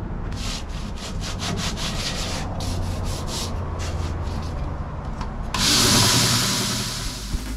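A belt sander runs with a steady hum while the fingerboard of a '71 Fender Precision Bass neck is ground against the belt in quick rasping strokes, about four a second. About two-thirds of the way through, a louder, even hiss of wood on the belt takes over and then tapers off. The fingerboard is being ground down to straighten a bowed neck.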